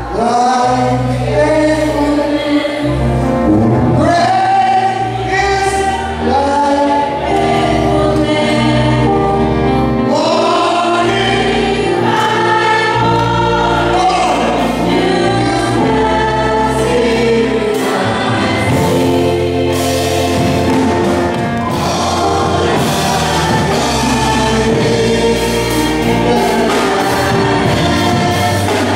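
Live gospel song: a male lead voice singing with women's backing vocals over held bass notes.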